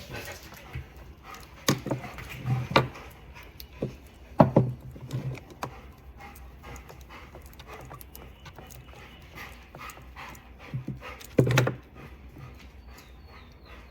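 Scattered clicks and knocks of plastic and metal parts being handled while the handlebar of a Stihl 023 chainsaw is unscrewed, with a few louder knocks, the loudest about four seconds in and again near the end.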